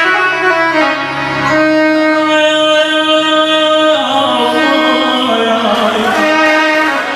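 Live Iraqi party music through a PA: an amplified instrumental melody of long held notes, with a man singing into a microphone from about four seconds in.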